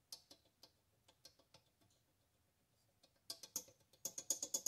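Exhaust valve of a Kohler Magnum M18 being rocked in its guide. First a few faint metallic clicks, then from about three seconds in a quick run of light ringing ticks, five or six a second. The clacking is the valve stem knocking in a sloppy, worn guide.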